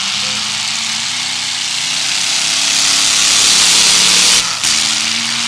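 Demolition derby car engines running and revving under a loud wash of noise that builds, then cuts off abruptly about four and a half seconds in.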